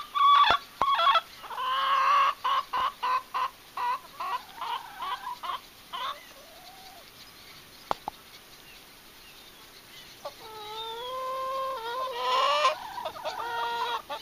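Hens clucking: a quick run of short clucks for the first six seconds, then a lull, then a long drawn-out call from about ten seconds in that ends in a loud squawk.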